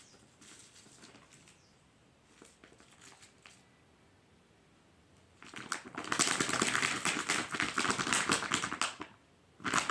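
Dense crinkling and crackling of something being squeezed and handled, loud from about five and a half seconds to nine seconds in and starting again near the end, with only faint scattered clicks before.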